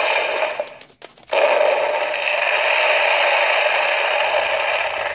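Uncle Milton 3D fireworks launcher toy playing its firework sound effect through its small built-in speaker, a steady noisy hiss. It cuts out briefly about a second in, starts again as the next firework is launched, and fades near the end.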